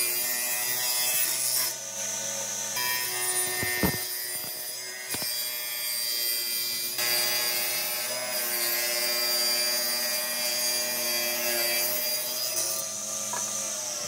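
Woodworking power tools running and cutting wood: a planer shaving a thick slab, then a circular table saw cutting a board, over a steady motor hum. The sound changes abruptly several times.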